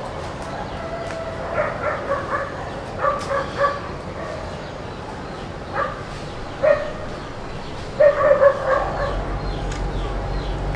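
A dog barking and yipping in short, scattered bursts, with the loudest cluster of barks about eight seconds in.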